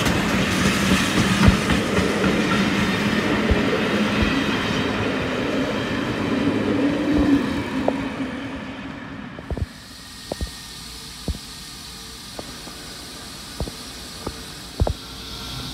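Steam-hauled passenger train passing close by: rumble and clickety-clack of the locomotive's and coaches' wheels over the rail joints, fading away over the first eight or nine seconds. After that it is much quieter, with a handful of sharp, separate clicks.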